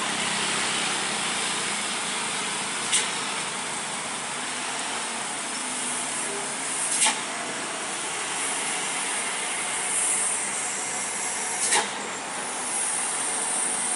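Heavy cargo truck's diesel engine working as the truck slowly rounds a steep hairpin, a steady rushing sound, with three short sharp hiss-like bursts about three, seven and twelve seconds in.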